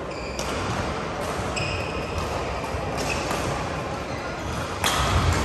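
Badminton hall ambience: sharp racket-on-shuttlecock hits from several courts, with short squeaks of court shoes on the mats. The loudest hit comes near the end.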